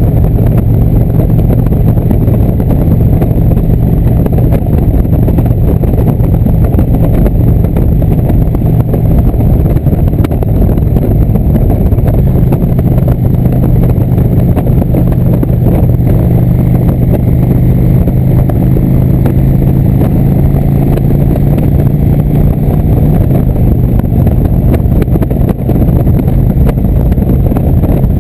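Indian V-twin motorcycle engine running at road speed under dense wind and road noise. The engine note steps up and down in pitch a few times.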